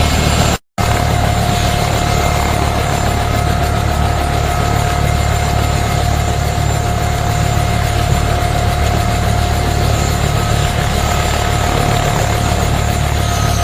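UH-1H Huey helicopter's T53 turbine running with a steady whine over a low rotor rumble, with a brief dropout under a second in; near the end the whine starts to fall in pitch.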